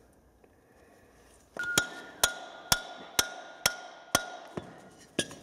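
Hammer striking a steel steam-engine piston rod seated upright in its crosshead block. About eight sharp metallic blows come roughly two a second, starting about a second and a half in, and each rings briefly.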